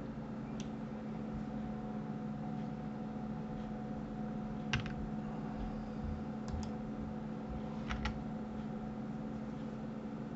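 Computer keyboard keys clicking a few separate times, loudest about five seconds in, over a steady low electrical hum from the recording setup.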